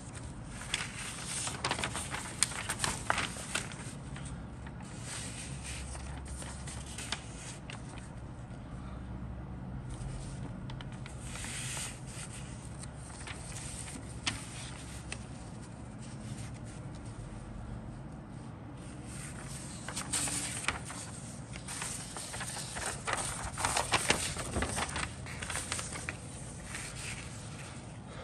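Paper instruction sheet rustling and crackling as it is handled and unfolded, in bursts near the start, about twelve seconds in, and again from about twenty seconds on.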